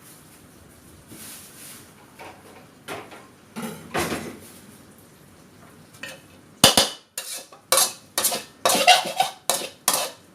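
A metal cooking utensil scraping and clinking against a pan and dishes: a few soft scrapes, then about ten sharp clinks in the last four seconds.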